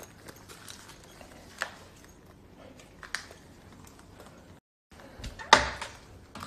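Scattered footsteps and small knocks in an empty room, with one sharper, louder knock about five and a half seconds in.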